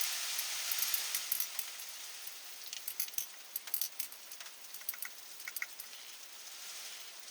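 Steady hiss of heavy rain, fading over the first couple of seconds, with scattered light metallic clinks and ticks through the middle, as of small metal parts being handled.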